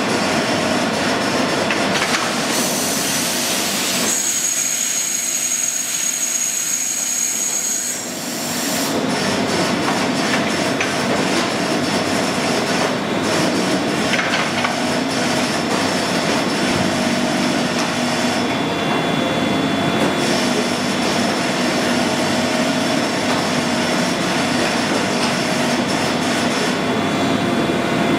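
Union CBFT 105 table-type boring and milling machine running: a steady mechanical drone of its spindle and axis drives, with a high whine that comes in a few seconds in and drops away after a few seconds.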